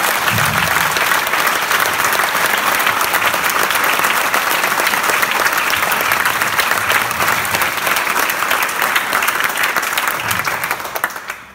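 Applause from a large crowd: many people clapping steadily, dying away near the end.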